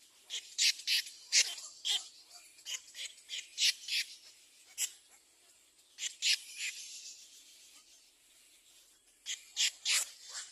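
Nestling birds begging for food with short, raspy, hissing calls in quick runs, pausing for a couple of seconds after the middle before a fresh run near the end.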